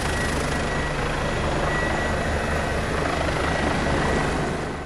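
Helicopter running on the ground: a steady turbine whine over an even, low rotor beat. It fades out at the very end.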